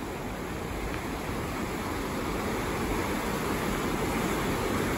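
Creek in flood: fast, muddy floodwater rushing past a footbridge in a steady wash of noise that grows slightly louder.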